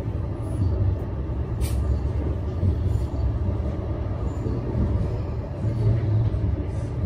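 Blackpool tram running with a steady low rumble, and a short sharp hiss about a second and a half in.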